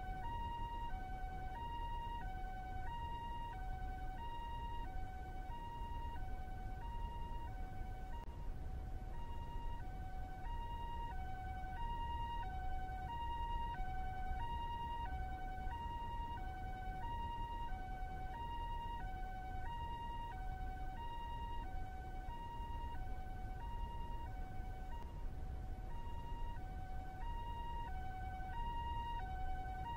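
Two-tone 'pee-po' siren of a Japanese ambulance, alternating steadily between a high and a low note, a pair about every 1.3 seconds. A steady low rumble sits underneath.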